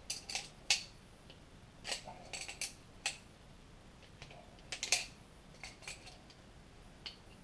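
Sharp metallic clicks and clinks, irregular and in small clusters, as pliers grip and turn a clutch puller to unscrew it from the clutch gear of a 66cc two-stroke bicycle engine.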